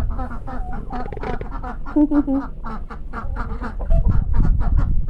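A group of ducks quacking and chattering, many short calls in quick succession, with louder bursts about two seconds in and again near four seconds.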